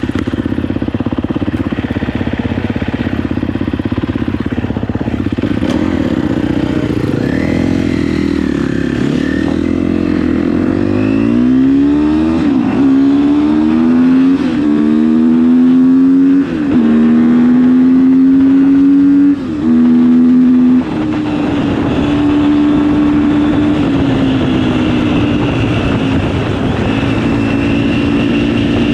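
KTM SX-F 250 single-cylinder four-stroke dirt bike engine running at low revs, then pulling away. Its pitch climbs and drops back at each of several quick upshifts, then holds a steadier cruise near the end.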